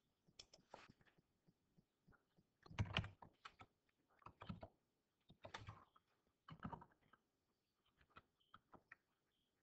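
Near silence broken by scattered faint clicks and soft knocks at irregular intervals.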